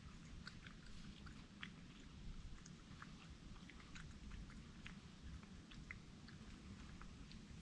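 A wild animal faintly chewing and crunching cookie pieces: irregular small clicks and crunches over a low steady rumble.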